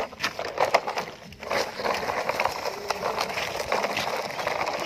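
Plastic toy dump truck pushed by hand over gravel and dirt, its plastic wheels and body crunching and rattling on the stones in a stream of small clicks, with a brief lull about a second in.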